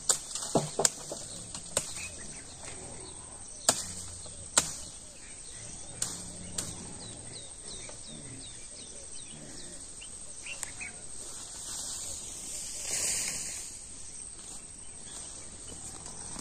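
Sharp knocks and snaps, about six in the first five seconds and two more near six seconds, over a steady high insect drone. Midway a bird gives a quick run of about eight short falling chirps.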